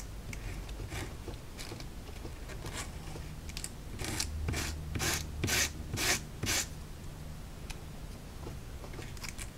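Thin laser-cut wood brace being dragged lightly across an emery board: short sanding strokes, faint at first, then a run of about six louder strokes at roughly two a second through the middle.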